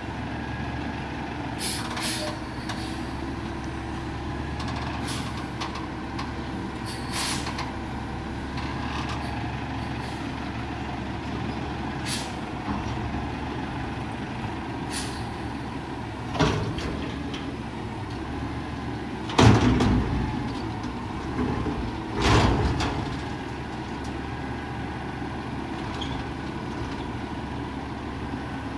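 Mack front-loader garbage truck idling steadily, with short hisses of air every few seconds. There are a few louder hisses and knocks a little past the middle.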